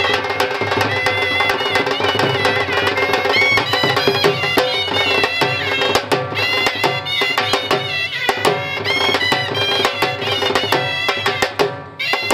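Shehnai reed horns playing an ornamented folk melody over a steady held drone, with regular dhol drum beats.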